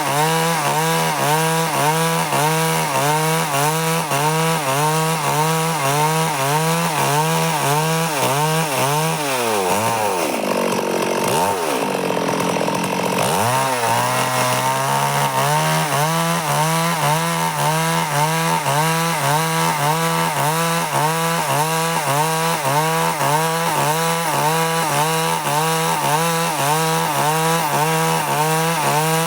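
Stihl chainsaw running at high speed, ripping a log lengthwise into boards. The sound swells and dips about twice a second. About nine seconds in, the engine speed drops sharply for a few seconds, then climbs back to full speed.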